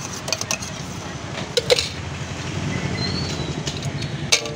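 Steady low rumble of street traffic, with a few sharp clinks of steel tins and a spoon at a bhelpuri cart. The loudest is a quick pair of clinks about a second and a half in.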